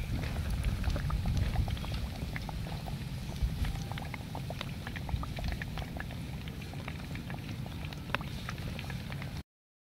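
Hot oil sizzling and crackling around a battered cake deep-frying in a pan, with many small pops over a steady low rumble. The sound cuts off suddenly near the end.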